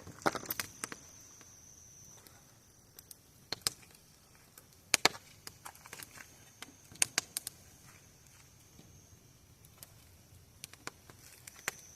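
Wood burning in a bonfire, crackling with sharp irregular pops. A thin, steady high-pitched tone comes and goes in the background.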